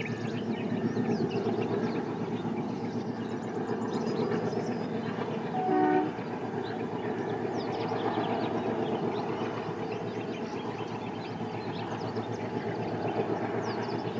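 Indian Railways ALCO-type diesel locomotive running with a steady engine drone, giving one short horn blast about six seconds in. Birds chirp over it.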